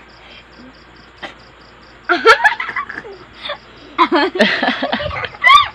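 Children laughing and squealing in short bursts, starting about two seconds in, with a high rising squeal near the end.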